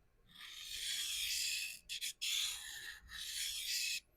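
Steel knife blade drawn across a vitrified diamond sharpening stone in long, very light strokes, a hissing scrape: about three long passes with a brief one between. The light pressure is for deburring the edge.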